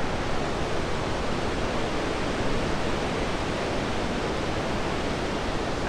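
Barron Falls in full flood after heavy rain: a steady roar of water plunging down the falls.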